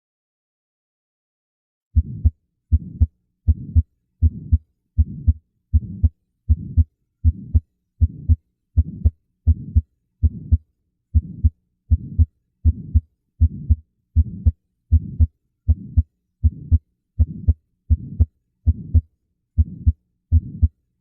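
Heart sounds heard through a stethoscope, beginning about two seconds in. A steady beat of about 80 a minute, each beat a pair of low thumps, the first and second heart sounds, with a murmur filling the short interval between them.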